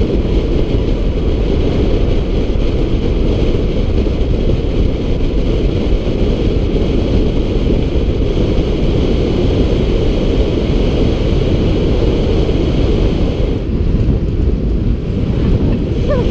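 Wind buffeting the microphone of a camera on a moving bicycle: a loud, steady rumble from riding speed.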